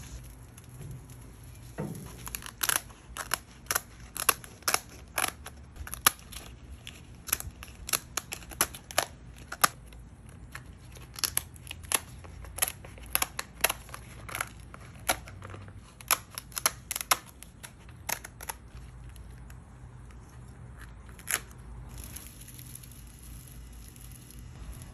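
Kitchen shears snipping and cracking through raw lobster tail shells: a long run of sharp snips, often several a second, that thins out and stops a few seconds before the end.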